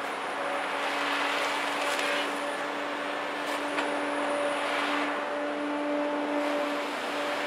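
Cat 521 track feller buncher with an HF201 felling head working: a steady whine over the machine's running noise, which swells twice.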